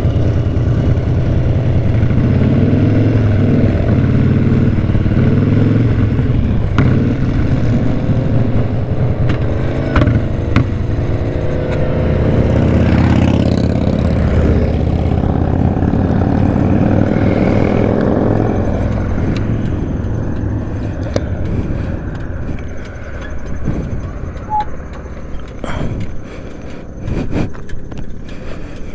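Motorcycle engine running under way, its pitch rising and falling with throttle and gear changes. A few sharp clicks come in the first third, and the engine gets quieter over the last third.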